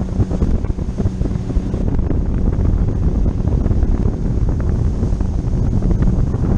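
Steady, loud wind buffeting the microphone, a low rumble with a faint steady hum underneath.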